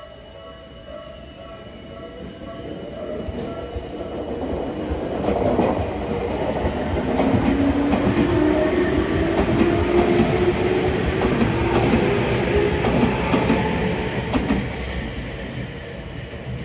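Tokyu Ōimachi Line 9000-series local train passing over the level crossing, its wheels clacking over the rail joints and its motor whine rising in pitch as it gathers speed. The sound builds, is loudest in the middle and fades near the end.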